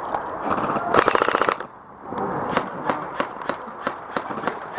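Airsoft gun firing: a short, loud full-auto burst of rapid shots about a second in, then a string of single sharp cracks at about four a second in the second half.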